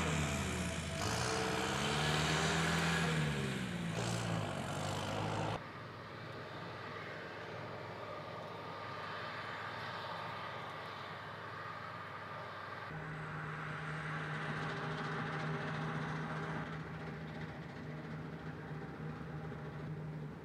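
New Holland combine harvester running in the field: a steady machine drone of engine and threshing noise. It is louder with shifting tones for the first few seconds, drops suddenly, and a steady engine hum comes back in about two-thirds of the way through.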